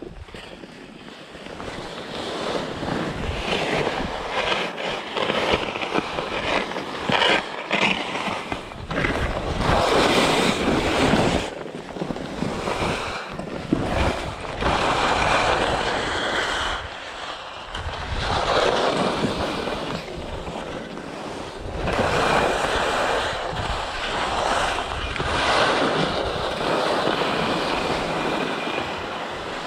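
Skis scraping and carving over hard, chalky snow in a run of turns, the rush swelling and fading every couple of seconds, with wind noise on the microphone.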